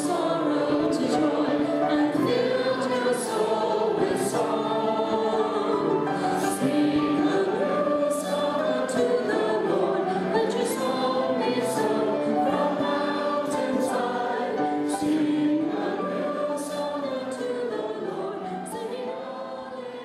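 A choir singing a hymn, with many voices holding sustained notes; the singing fades down over the last few seconds.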